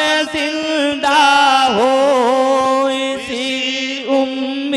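A man singing an Urdu naat through a microphone, drawing out long, wavering held notes in a slow melismatic phrase.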